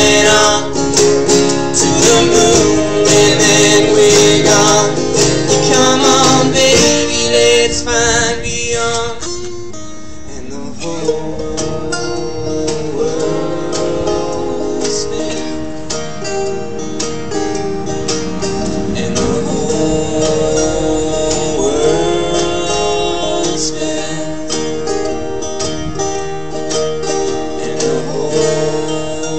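Band music with acoustic guitar and other plucked strings playing an instrumental passage without sung words. It dips in loudness about a third of the way in, then carries on.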